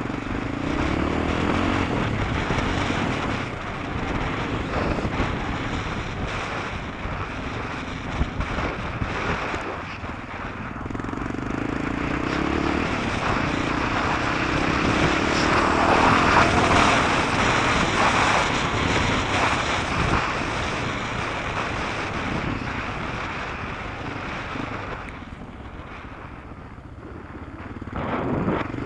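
Engine of the vehicle carrying the camera running hard along a dirt track, its revs rising and falling, loudest about halfway through and easing off briefly near the end.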